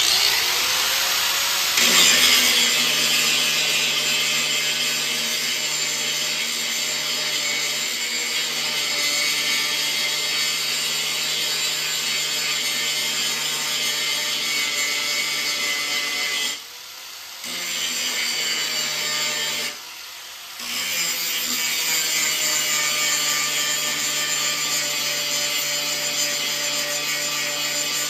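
Electric grinder grinding the top off a stubborn, stuck metal part. It starts at once, its pitch rising over the first two seconds as it spins up, then runs steadily and eases off briefly twice about two-thirds of the way through.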